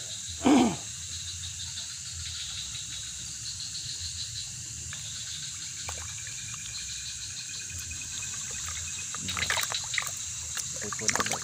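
Splashing and sloshing near the end as a caught walking catfish thrashes in a metal basin of water, over the steady chirring of night insects. About half a second in there is one brief, loud sound that falls in pitch.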